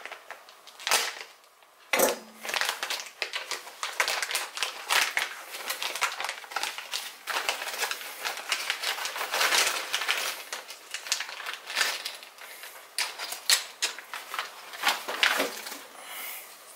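Clear plastic parts bag crinkling and crackling in the hands as it is worked open and a part is pulled out, a dense run of sharp crackles with a few louder snaps.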